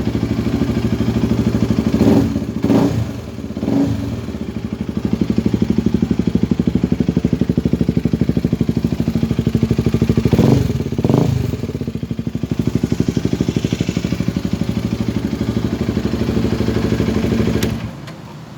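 KTM RC250 single-cylinder engine idling with an even beat, blipped up in a few quick revs about two seconds in and twice more around ten seconds in, then shut off with a click shortly before the end.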